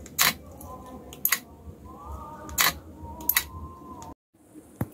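Sharp clicks and knocks, about one a second, of small electronic parts and wiring being handled and connected. The sound cuts out completely for a moment about four seconds in.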